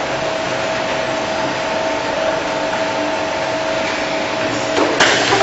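Production-line machinery running with a steady hum and a constant whine, then a short burst of hiss near the end.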